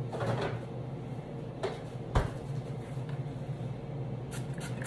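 Refrigerator door handled and swung shut, closing with a solid thud about two seconds in, among lighter knocks of items being taken out. A low steady hum runs underneath.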